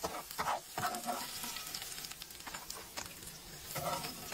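Fries and a burger frying in grease in a pan, sizzling steadily, with a utensil stirring and scraping against the pan in short bursts in the first second and again near the end.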